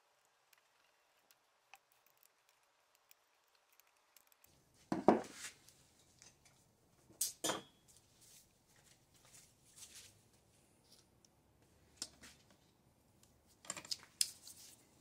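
Metal hand tools clinking and knocking against a wooden workbench in a few separate strikes: a loud pair about five seconds in, two more at about seven and a half seconds, one near twelve seconds and a short cluster near the end.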